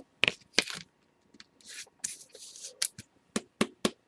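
Trading cards being handled and slid against each other: a series of small clicks and short scraping rustles, with a longer rustle about two seconds in.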